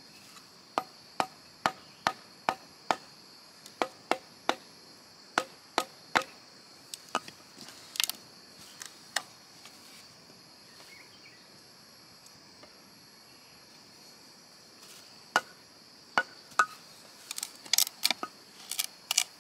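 Bamboo being chopped with a blade: a run of sharp strikes at about two or three a second, a few scattered blows, then a quiet spell and a quicker flurry of strikes near the end.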